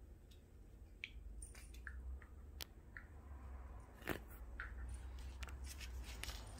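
A dog and a kitten play-wrestling on a wooden floor: faint mouthing and scuffling, with scattered light clicks and taps from paws and claws and a sharper tap about four seconds in.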